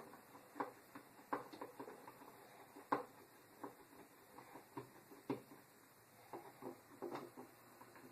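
Faint, irregular clicks and small knocks of hand work on a wall light switch, a screwdriver turning out the mounting screws, with a few sharper clicks among them.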